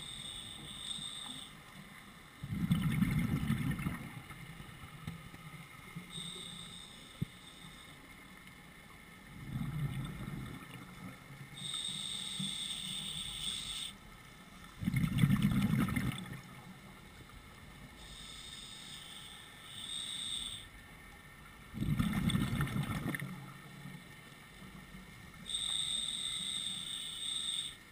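Scuba diver breathing through a regulator underwater: each inhale is a thin whistling hiss, each exhale a louder low burst of bubbles, about four breaths six to seven seconds apart.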